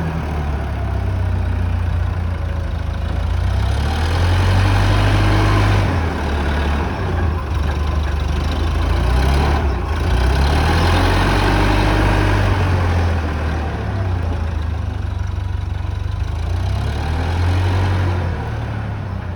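Swekip 2550 compact wheel loader's engine running, its speed and load rising and falling several times as the machine is worked.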